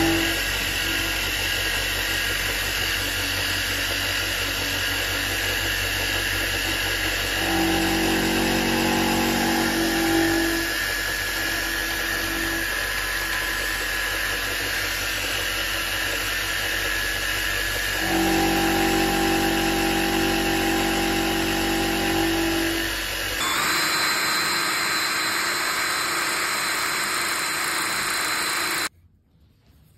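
Milling machine running, its end mill cutting a metal block, with a louder steady tone coming in twice for a few seconds each. About 23 seconds in, a handheld drill takes over, boring a small hole in a part held in a vise, and stops suddenly about a second before the end.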